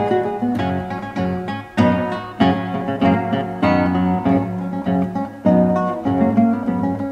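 Background guitar music, chords strummed at an even pace of about two a second.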